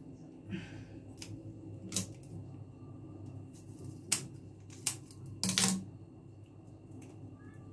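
Small scissors snipping and cracking the hard black shell of water caltrops (ling kok): several sharp clicks a second or more apart, the loudest a quick cluster of cracks about two-thirds of the way through.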